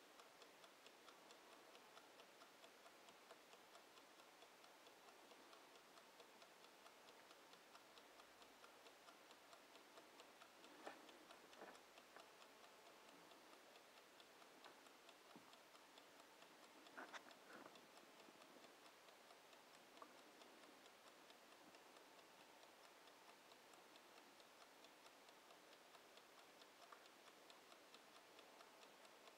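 Bodum mechanical kitchen timer ticking steadily and faintly, with a few louder clicks about 11 and 17 seconds in.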